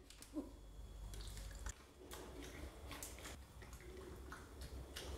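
Faint, scattered clicks and taps of a raccoon's paws handling hard plastic toy food in a toy oven, over a low hum.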